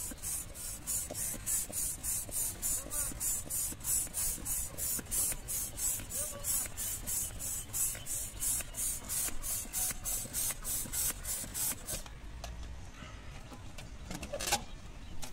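Plastic hand balloon pump being worked quickly: a short hiss of air on each stroke, about three a second, as a balloon is inflated. The pumping stops about twelve seconds in, followed by a few faint handling sounds.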